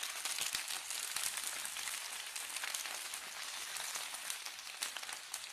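Washed, chopped iceberg lettuce sizzling in hot olive oil in a frying pan: a steady sizzle full of small crackles as the wet leaves meet the oil.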